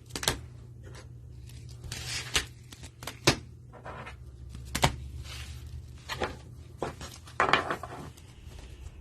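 Trading cards and packaging handled on a table while the cards are gathered for review: a string of sharp taps and clicks with two brief rustles, over a steady low hum.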